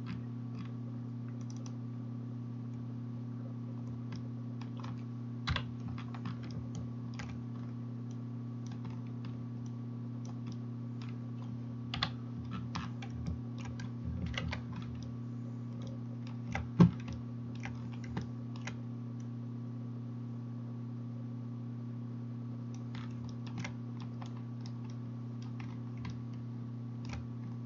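Scattered clicks from a computer keyboard and mouse, in irregular clusters with the sharpest one about two-thirds of the way through, over a steady low hum.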